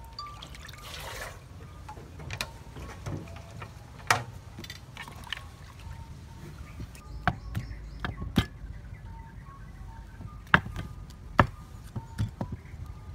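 Water poured briefly from a large plastic water jug into a metal basin about a second in, followed by scattered sharp knocks of hands and utensils against the basin. Near the end a wooden pestle knocks in a wooden mortar, pounding a paste.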